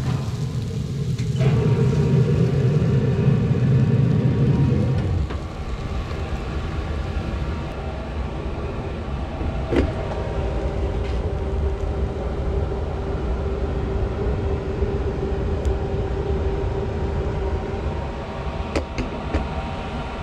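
Green Mountain Grill pellet grill running, a steady low rumble with a faint hum from its fan. It is louder for the first few seconds, and there is a single sharp click about ten seconds in.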